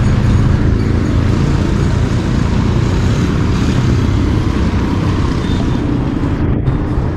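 A vehicle on the move: steady engine and road noise.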